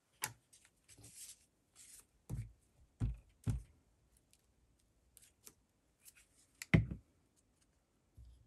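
Paper scraps being handled on a craft desk: a brief paper rustle and light clicks, then four soft thumps as pieces are pressed or set down, the loudest near the end.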